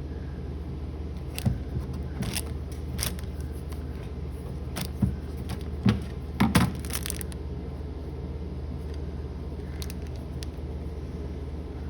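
Small metal clicks and taps from a screwdriver, screws and a switch plate being worked loose at a wall light switch, a cluster of them in the middle and one more near the end, over a steady low hum.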